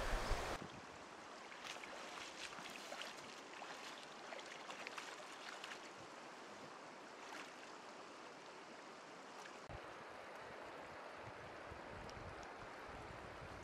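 Shallow river water running over stones as a faint, steady rush, with light ticking splashes for a few seconds near the start. It opens with a brief gust of wind on the microphone that cuts off after half a second.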